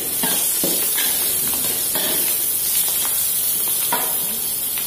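Mustard greens sizzling in hot oil in an aluminium wok, with a steady hiss, while a metal spatula scrapes and knocks against the pan several times as they are stir-fried.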